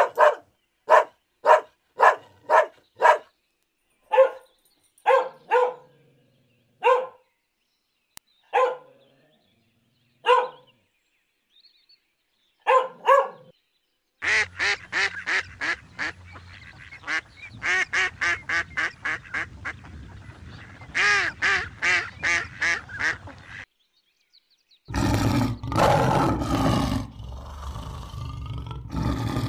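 A dog barking, first about two barks a second, then slower single barks. Then a mallard hen quacking in quick runs. Then, near the end, a lion roaring.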